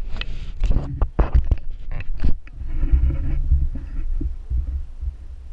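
Handling noise from a fisheye action camera being picked up and repositioned: a quick run of knocks and scrapes in the first two seconds or so, then duller, low rubbing on the microphone.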